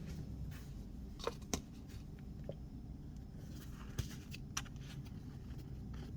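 A few separate sharp light clicks, about four spread over several seconds, over a steady low hum.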